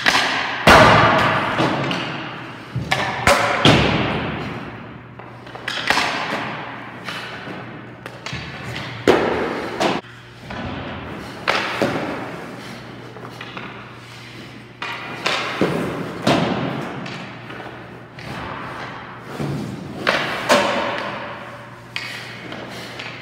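Hockey pucks being shot and hitting a goalie's gear and the boards: sharp cracks every second or two, each ringing out in a long arena echo.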